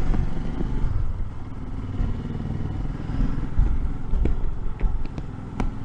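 Royal Enfield Himalayan's single-cylinder engine running with a steady low rumble, with a few light clicks near the end.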